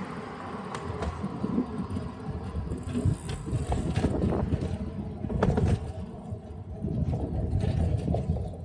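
Wind buffeting the camera microphone, mixed with tyre and road noise from a bicycle being ridden along a road, swelling and easing unevenly.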